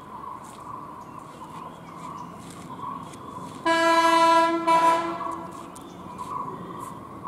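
A Tamil Nadu government bus's horn sounds twice about halfway through: a blast about a second long, then a short second toot.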